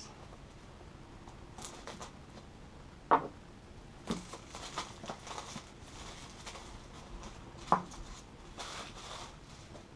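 Quiet handling of a cardboard box among foam packing peanuts: cardboard scraping and rustling, with two short sharp knocks about three and eight seconds in.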